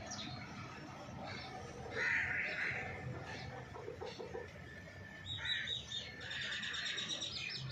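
Birds calling: a short harsh call about two seconds in, then a quick run of high, rapidly repeated chirps over the last two and a half seconds.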